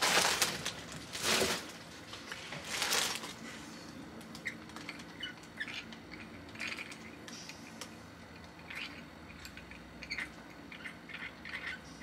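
Three short rustles of packaging in the first three seconds, the first the loudest, then faint scattered clicks and scrapes of a small plastic gyro-style fidget toy being twisted and turned in the hands.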